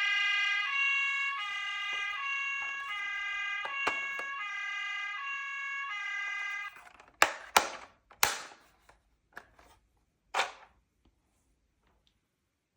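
Toy ambulance's electronic two-tone siren, alternating high and low about every half second, cutting off suddenly about seven seconds in. A few sharp clicks and knocks follow.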